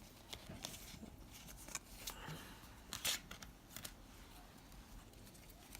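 Trading cards being handled and flipped through: soft paper rustling with scattered light ticks and slides.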